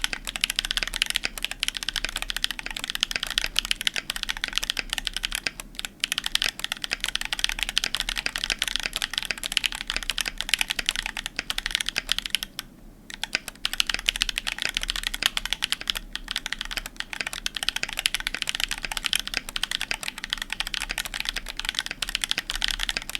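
Continuous fast typing on a Percent Canoe mechanical keyboard. It has lubed OG Holy Panda tactile switches, JTK Raindrop keycaps and an aluminium plate, with MK Ultra foam damping between PCB and plate and in the case. The keystrokes run in a dense clatter, with a brief pause a little past halfway.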